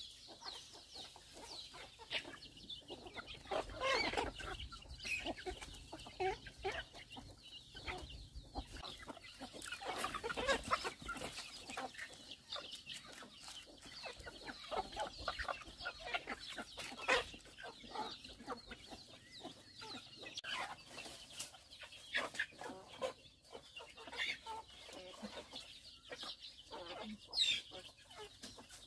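A flock of domestic chickens clucking, in many short, irregular calls.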